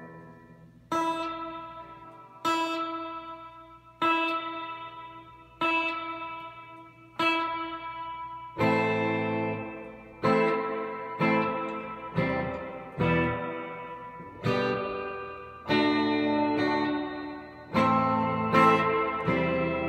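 Electric guitar chords played through a Fender Deluxe Reverb tube amp with its spring reverb turned up to 10. Each chord is struck and rings out into a long, washy reverb tail. They come about every second and a half at first and closer together in the second half.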